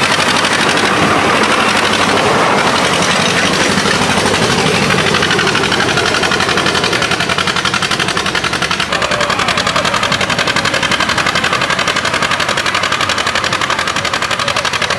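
Tractor engine running loud and steady, its firing pulses coming fast and even.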